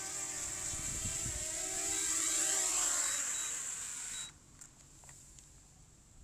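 DJI Mini 2 drone's propellers whining as it hovers and descends close by, growing louder for a moment, then the motors stop suddenly about four seconds in as it lands. A few small clicks follow.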